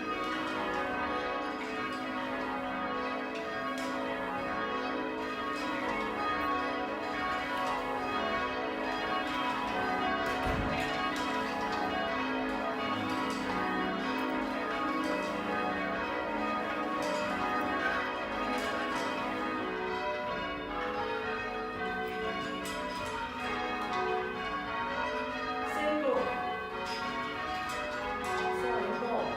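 Church bells being change-rung at a ringers' practice: a steady, overlapping stream of bell strikes, each bell sounding in turn as the order changes.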